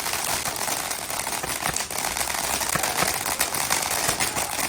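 Fireworks crackling: a steady hiss of rapid small pops and crackles, with a few sharper cracks standing out.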